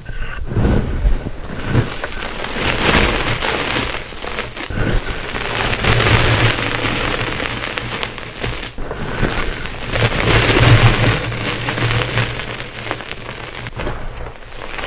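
Gym chalk blocks being crushed and crumbling into powder: a dense, dry crunching and crackling with sharper cracks along the way, broken twice by brief abrupt gaps.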